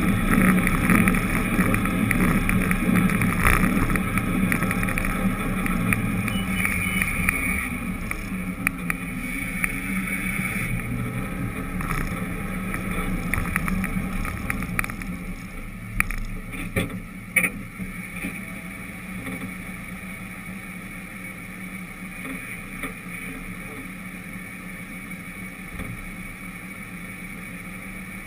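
Motor vehicle engine running with road and wind noise as it drives along a street, fading steadily as the vehicle slows almost to a stop. Two sharp clicks a little past halfway.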